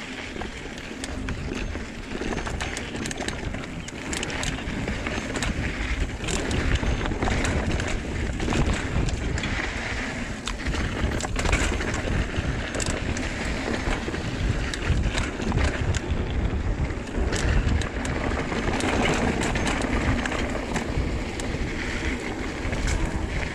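Full-suspension mountain bike descending rocky singletrack at speed: tyres rolling over dirt and rock, chain and frame rattling with frequent sharp clicks and knocks, over a steady rush of wind on the microphone.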